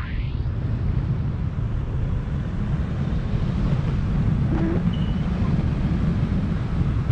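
Wind buffeting a GoPro's microphone in paramotor flight: a steady low rumble with a faint hiss above it. A brighter rushing noise drops away right at the start.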